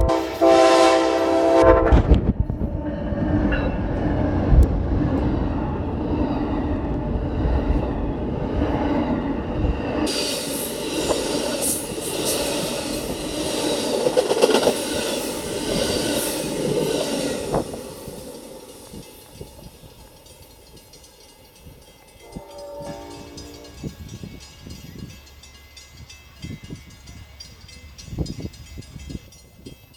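Amtrak passenger train passing close by: its horn chord sounds and ends about two seconds in, then the train runs past loudly for about fifteen seconds before its sound drops away. A shorter, fainter horn blast comes a little past the twenty-second mark.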